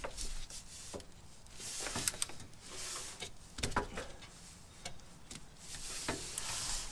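Irregular light clicks and knocks of a ratchet with stacked extensions and an oil filter wrench being fitted and worked onto the oil filter housing from under the car.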